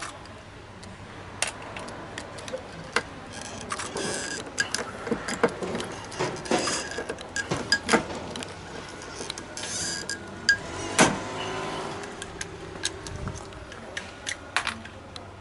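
Hand rivet gun setting rivets through a patch plate on a steel truck cab panel: a series of irregular metal clicks and clinks, a few sharp loud ones about eight and eleven seconds in.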